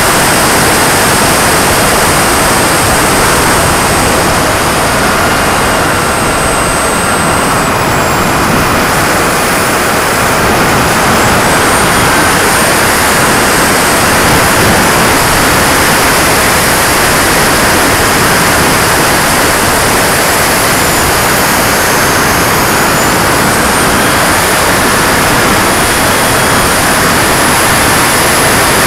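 Model jet's turbine engine heard from a camera mounted on the airframe in flight: a loud, steady rush of airflow and exhaust with a thin, high turbine whine that slowly drifts up and down in pitch as the throttle changes.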